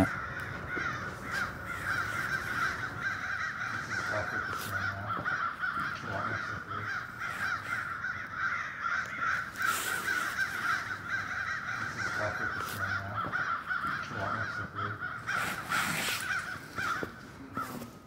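A flock of crows cawing continuously, many calls overlapping into a steady chorus that stops just before the end.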